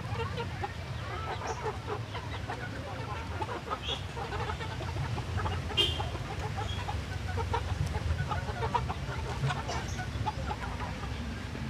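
A flock of kampung chickens clucking over a steady low hum, with one sharp click about halfway through.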